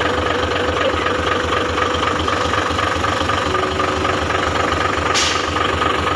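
Mitsubishi Fuso 6M70 inline-six diesel engine idling steadily after a start, its injectors freshly calibrated to cure hard starting. A short hiss comes about five seconds in.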